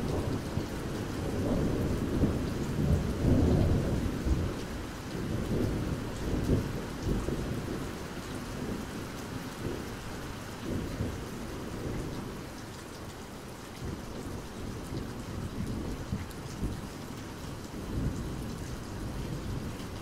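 Steady rain falling on a surface, with a low rumbling underneath that swells in the first few seconds and fades away over the first half.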